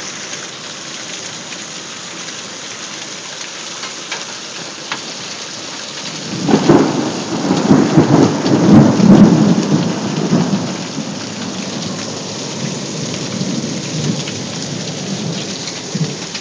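Heavy rain pouring steadily in a thunderstorm. About six seconds in, a loud crack of thunder breaks into a rumble that lasts about four seconds, then fades to fainter rumbling.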